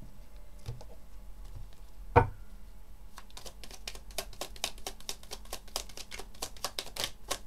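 Tarot cards gathered up from the table, with one sharp knock about two seconds in. From about three seconds in the deck is shuffled by hand, giving a quick run of card clicks, several a second.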